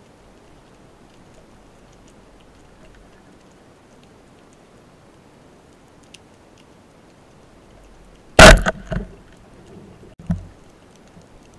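Band-powered speargun fired underwater: one loud sharp crack about eight seconds in, a few quick rattles right after it, and a lighter knock about two seconds later. A faint underwater hiss with scattered small ticks lies underneath.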